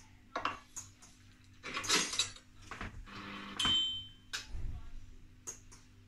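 Sharp clicks and clattering knocks, with one short, high electronic beep from the Beko washing machine's control panel a little past halfway, as the machine enters its test mode and lights every segment of its display.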